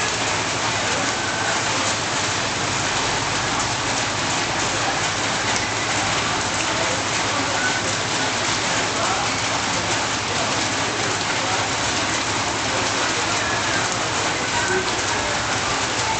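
Heavy tropical rain pouring steadily in a thunderstorm, a dense, even hiss of rain on surfaces with many small drop patters.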